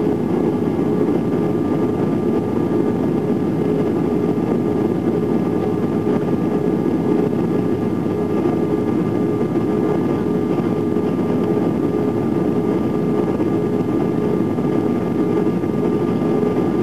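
Steady in-cabin noise of an Airbus A320 on approach: an even rumble of engines and airflow, with a few faint steady whines above it.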